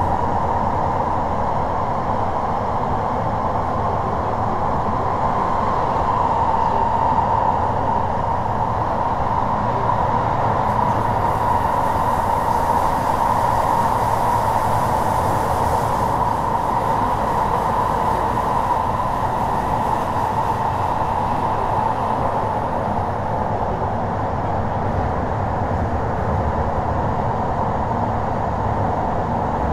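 Kyoto Municipal Subway Series 50 train heard from inside a passenger car, running at a steady pace: a continuous rumble and roar of wheels on rail that holds an even level throughout.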